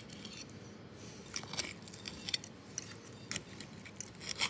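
Knife and fork cutting into a pan-fried, breadcrumb-coated sardine: scattered light crackles of the crisp crust and small clinks of the steel cutlery against the ceramic plate.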